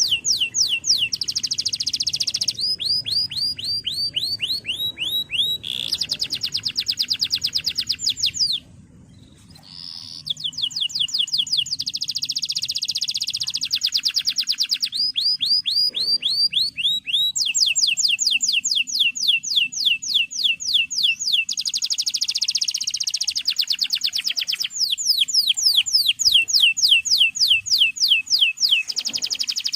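Male canary singing: long rapid trills of quickly repeated, falling notes, switching to a new trill every few seconds, with a brief break about nine seconds in.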